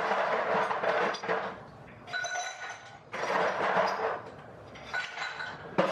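Glassware and dishes being handled, with light rustling and a couple of glassy clinks that ring briefly.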